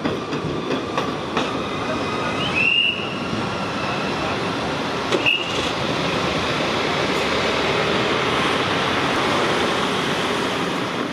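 New Tohoku Shinkansen car rolling slowly on its steel wheels over the level crossing and on along the street track, a steady rumble, with two short high wheel squeals about two and a half and five seconds in.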